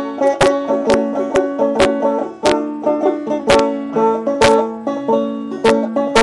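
Banjo being picked: a tune of sharp plucked notes, each ringing out briefly over a lower string that keeps sounding.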